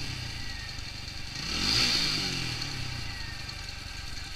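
TVS Apache RTR 200 single-cylinder engine idling, blipped once about a second and a half in: the revs rise and fall back to idle. The carburettor's fuel screw is still being set, and the rider hears a slight hesitation in the response.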